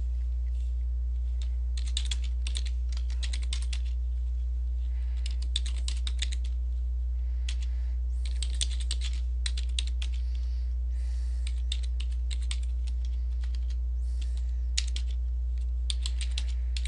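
Typing on a computer keyboard: runs of quick keystrokes with short pauses between them, over a steady low hum.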